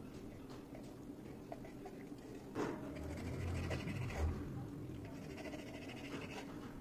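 A knife slicing through a rolled laphing sheet on a plate. There are faint scratchy scraping sounds against the plate and soft handling noises, with a sharp knock about two and a half seconds in.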